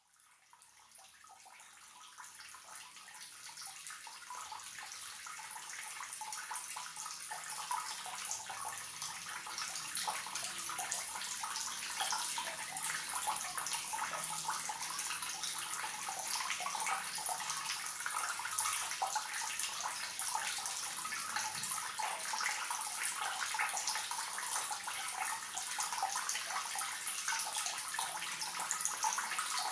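Water running from a leaking tap as a steady trickling splash, fading in over the first several seconds.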